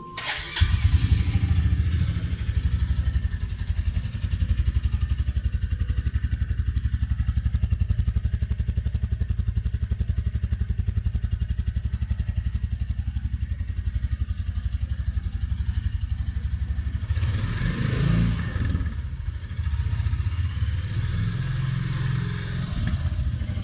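Royal Enfield Bullet motorcycle exhaust at idle, a steady beat of exhaust pulses that comes in abruptly about half a second in. About seventeen seconds in the engine is briefly revved, then settles back to idle.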